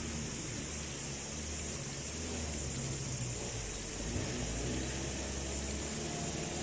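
Steady hiss over a low rumble, with a distant Mitsubishi L300 van's engine becoming faintly audible near the end as the van approaches.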